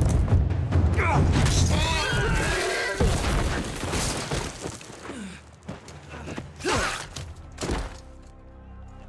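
Film sound mix of a charging horse: galloping hooves under pounding drums, a horse's shrill wavering scream about a second in, then a heavy crash around three seconds in as the horse goes down in the dust. Low sustained music notes take over near the end.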